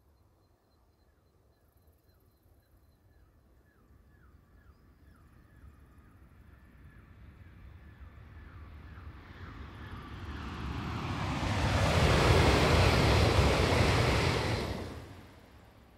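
JR West 923-3000 series Doctor Yellow Shinkansen inspection train passing at high speed on a viaduct. Its rush of air and wheel noise builds over several seconds, stays loudest for about three seconds near the end, then falls away quickly as it goes by.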